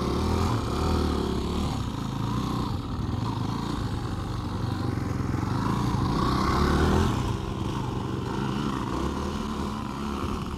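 Two dirt bike engines, a small children's dirt bike and a full-size motocross bike, running and revving as the bikes ride off together. The engine note rises and falls and is loudest about seven seconds in.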